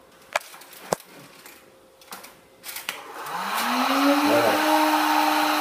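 A handheld electric heat gun is switched on a little over three seconds in. Its motor whine rises in pitch and settles to a steady tone under a rush of blown air. Before that there are a few light knocks and clicks of handling.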